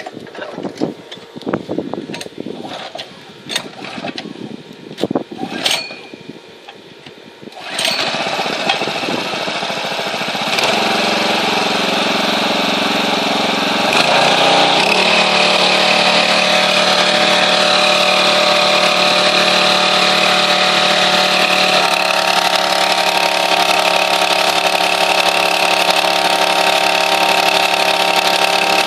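A pressure washer starts up after several seconds of clicks and knocks from handling it. It then runs steadily and loudly, and its pitch steps up twice.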